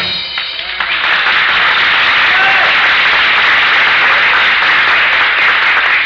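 The radio orchestra's music cue ends within the first second, followed by steady studio audience applause.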